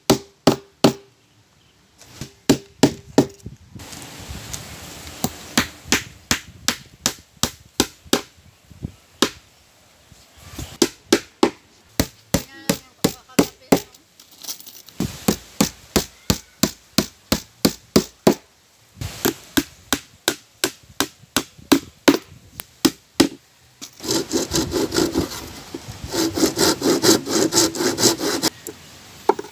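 Claw hammer driving small nails into a plywood cover on a small wooden boat, in runs of sharp blows with short pauses between. Near the end a handsaw cuts wood in fast back-and-forth strokes.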